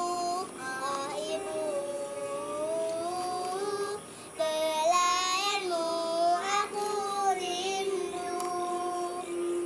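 A young girl singing into a microphone in long held notes that waver in pitch, with a short breath pause about four seconds in.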